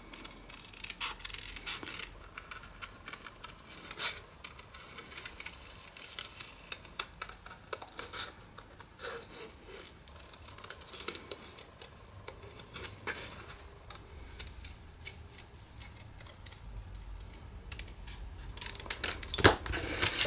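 Small scissors snipping through white cardstock in many short cuts, working around the outline of a small heart, with the card rustling as it is turned.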